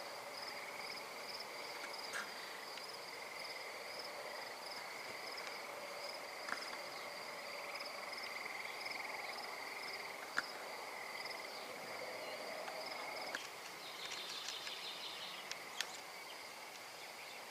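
Crickets chirping steadily outdoors at night, in two overlapping pitches, with a few sharp clicks scattered through and a short patch of busier chirping near the end.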